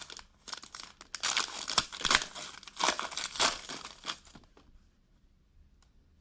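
Plastic wrapping on a trading-card box or pack being torn open and crinkled by hand, with rapid crackling for about four and a half seconds, then it stops.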